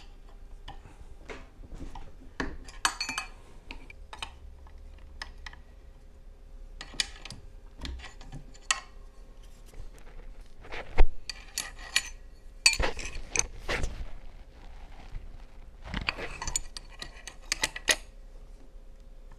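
Steel hand tools and parts clinking, clicking and scraping against the aluminium cam box and camshaft hub of a Jaguar V-12 cylinder head while the camshaft is turned with a wrench and bolts are fitted. The sounds come scattered and in short clusters, with one sharp knock about 11 seconds in.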